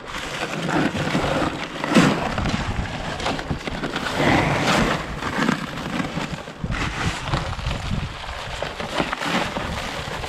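Dry concrete mix pouring from a paper sack into a wheelbarrow with a rushing hiss, the sack's paper rustling and crinkling. There is a sharp thump about two seconds in.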